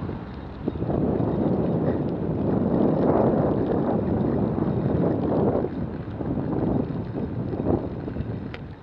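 Wind buffeting the microphone of a camera riding on a moving bicycle, surging louder and softer as the bike travels along a wet street.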